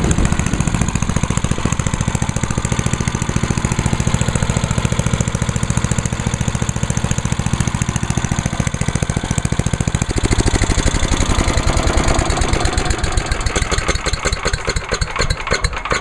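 10 horsepower Tecumseh HM100 single-cylinder engine on a Yard Machines by MTD chipper/shredder, running steadily on ethanol-free fuel after starting on one pull. Its note changes about ten seconds in.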